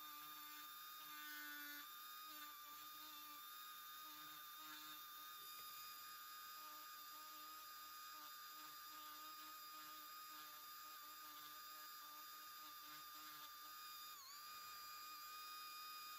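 Handheld Dremel-type rotary tool spinning a small burr against pine knot wood: a steady high whine that sags briefly in pitch about fourteen seconds in as the bit bites.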